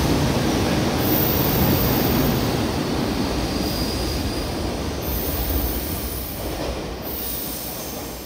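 JR Kyushu 811 series electric train, two sets coupled, pulling out and running away along the rails, its wheel and running noise fading steadily as it draws off.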